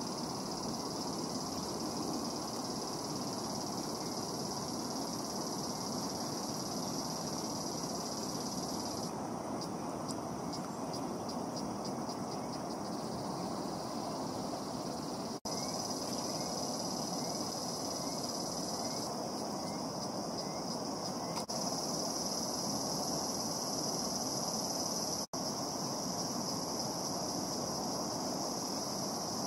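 Insects buzzing in a steady high-pitched drone, which breaks into a pulsing trill about ten seconds in and again around twenty seconds, over a steady rushing hiss.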